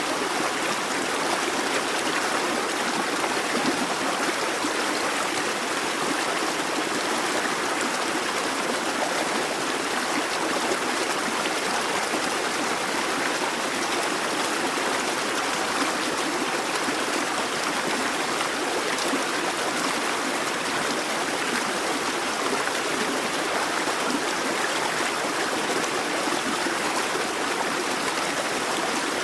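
Babbling brook: water running and burbling over stones in a steady, busy flow.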